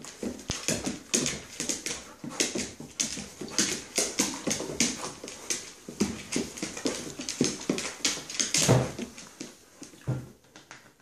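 Alaskan malamute puppy spinning after its tail on a hardwood floor: its claws click and scrabble rapidly on the boards, with dog whimpers mixed in. The sounds fade near the end as it stops.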